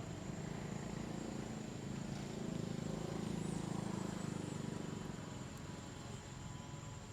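A motor engine running with a low, fast-pulsing hum, growing louder about two seconds in and fading again toward the end.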